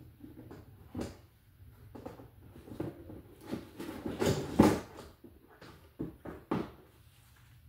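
Hand tools and small items being rummaged through on a cluttered work table: irregular clinks, knocks and rustling, loudest a little past halfway.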